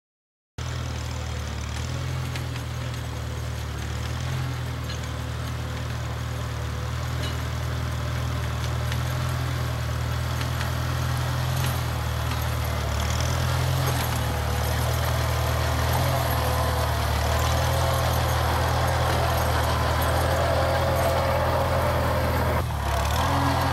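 1948 Farmall Cub's four-cylinder flathead engine running steadily with a low, even drone, cutting in suddenly just after the start and dipping briefly near the end.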